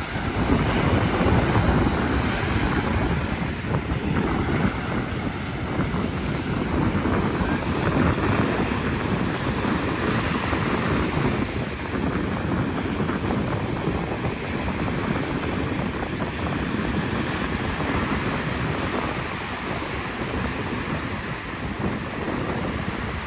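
Sea surf breaking and washing up the sand in steady, swelling waves, with wind buffeting the microphone.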